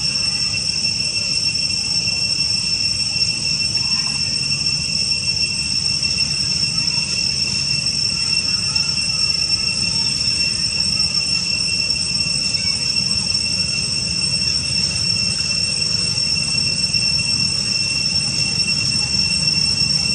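Insects droning: a loud, steady high-pitched chorus of the cicada kind, unbroken, over a low rumble.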